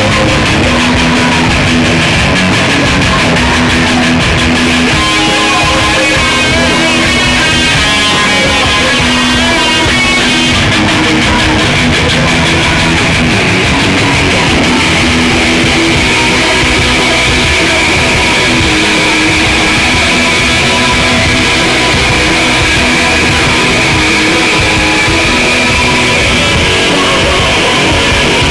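A punk rock band playing loud and fast in a small club, heard from the audience: distorted electric guitar, electric bass and drums.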